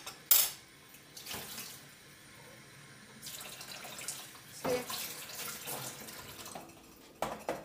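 Hands rubbing and clapping together to dust off flour while a raw meatball is rolled, with a few sharp claps, over a faint steady hiss.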